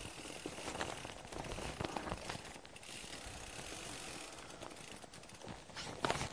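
A bicycle moving over rough off-road ground: a steady rush of noise with frequent small rattles and clicks, and a louder knock near the end.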